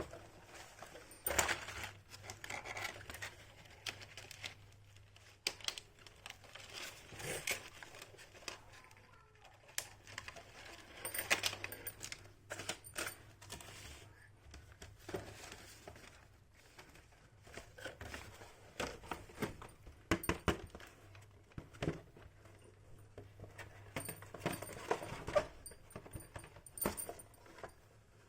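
Unboxing a miniature bridal doll set: packaging crinkling and tearing, with irregular small clicks and clinks as the tiny pieces are handled.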